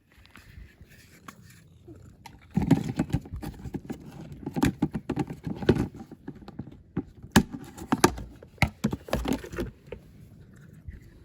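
Toy packaging handled and opened by hand: a dense run of crinkles, clicks and rustles that starts about two and a half seconds in and dies down near the end.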